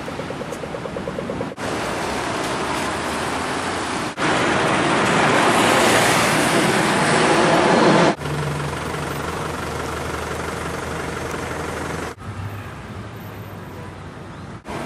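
Street traffic on a rain-wet road: a steady hiss of tyres on wet asphalt, with one vehicle passing close, swelling and loudest from about four to eight seconds in. The background changes abruptly several times.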